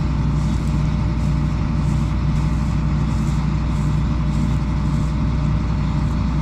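Combine harvester running nearby with a steady, unbroken low drone and the hiss of its threshing and cleaning machinery.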